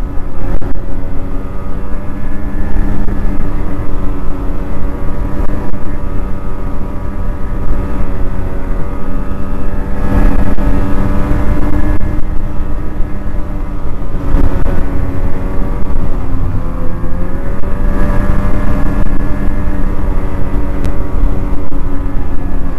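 Snowmobile engine running steadily at trail speed, its pitch rising and falling a little with the throttle, over a constant low rumble.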